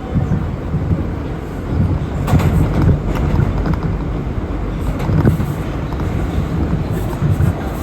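R179 subway train running, heard from inside the car: a loud, steady low rumble of wheels on rail, with a few sharp clacks.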